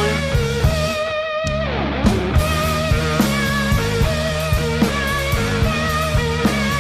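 Outro music: a rock track with guitar and drum kit keeping a steady beat.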